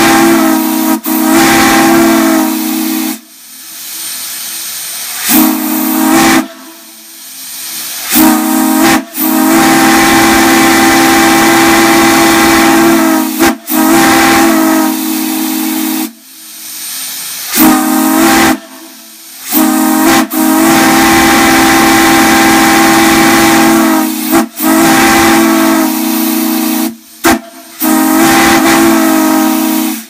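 Large steam whistle on a steam-fed whistle manifold, blown in about ten blasts of one to five seconds each. Each blast sounds a steady pitched chord over hissing steam, and the sound drops to a softer hiss between blasts.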